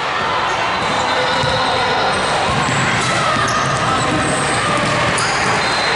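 Basketball being dribbled on a hardwood gym floor, with sneaker squeaks and chatter from players and spectators.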